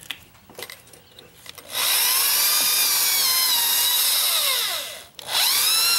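Electric drill boring holes into a wooden door jamb to hollow out a deadbolt strike pocket. It runs twice, starting about two seconds in and again just after a short stop near the end, its motor whine rising and then falling in pitch with each run.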